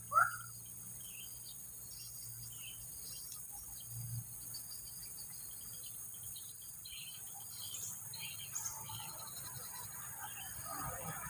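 Faint outdoor chorus of chirping birds and insects. One short, loud, downward-sliding call comes just after the start, and a low rustling jumble rises near the end.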